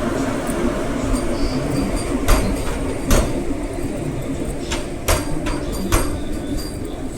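Train rumbling steadily, with sharp clicks and knocks at irregular intervals.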